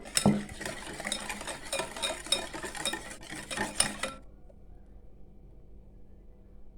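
A utensil stirring egg, sugar and oil in a mixing bowl, with quick irregular clicks and scrapes against the bowl. The stirring stops about four seconds in.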